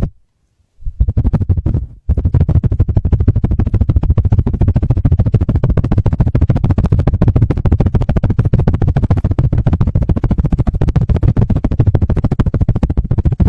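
Fast, continuous rubbing and tapping right on a pair of binaural microphones, the "helicopter" ASMR trigger, heavy in the low end. It stops almost at once, starts again about a second in, breaks off very briefly at about two seconds, then keeps going.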